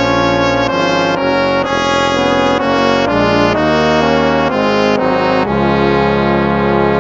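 Instrumental hymn: a slow chord progression, each chord held about half a second, ending on a long final chord over the last second and a half.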